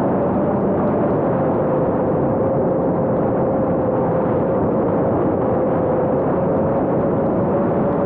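A 5-inch FPV quadcopter's motors and propellers buzz steadily, heard from a camera mounted on the drone itself, over a dense rush of air noise. The pitch of the buzz sags a little midway and climbs back near the end.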